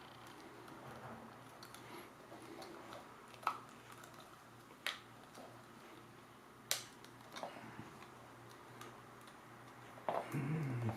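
Scattered sharp clicks and light knocks of a plastic power-plug housing being handled and fitted closed over its wiring, with a louder, longer bout of handling noise near the end.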